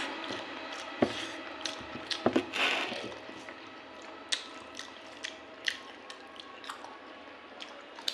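Eating sounds: wet chewing and smacking of rice and curry, with scattered small clicks. A few louder clicks come in the first three seconds, then quieter ones.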